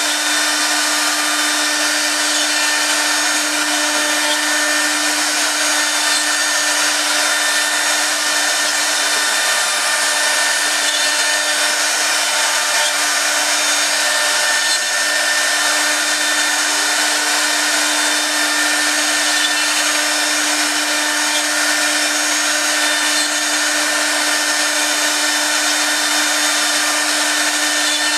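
Four-spindle CNC router carving a wave pattern into a wood board: the spindle motors' steady whine with the noise of the bits cutting the wood, unchanging throughout.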